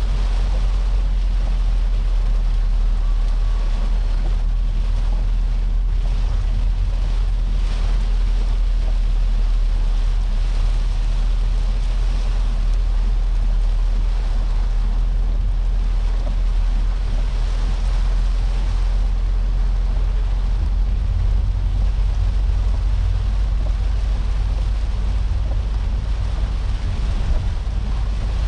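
Steady in-cabin noise of a Peugeot 406 saloon driving through heavy rain: a low engine and road rumble under the hiss of rain on the roof and glass and the tyres on the wet road.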